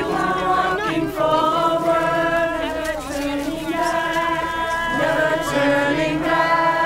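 A crowd singing a chant together in unison, many voices holding long notes one after another.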